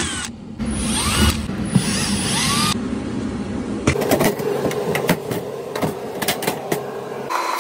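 Cordless drill/driver spinning screws out of a metal panel in short runs, its motor pitch rising and falling with each trigger pull. From about four seconds in come sharp clicks and knocks as the panel is handled.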